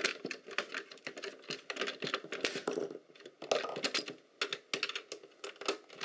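Irregular small clicks and rattles of plastic and metal parts as the circuit board is handled and tugged in the docking station's plastic housing, with two short lulls around the middle.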